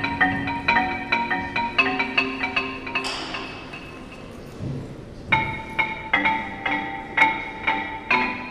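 Mallet-percussion music in the manner of a marimba: quick struck notes, about three or four a second, each ringing briefly. About three seconds in the notes give way to a short hiss that fades, and they start again about five seconds in.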